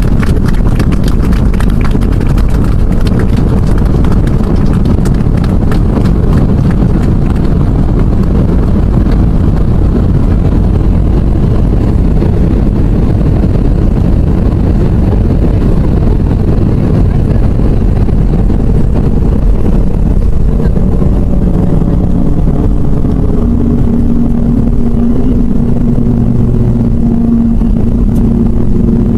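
Loud airliner cabin noise as the jet rolls along the runway: a steady rumble of engines and wheels, with rapid rhythmic thumping of the landing gear over the pavement that fades during the first several seconds. Steady engine tones come through near the end.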